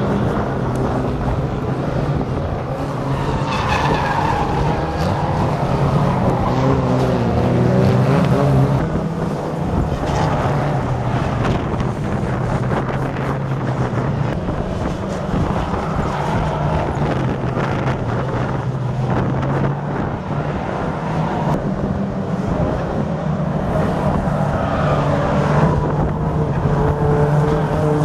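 Several old banger-racing saloon cars with small engines running and revving together around an oval track, engine pitch rising and falling, with tyres skidding and squealing.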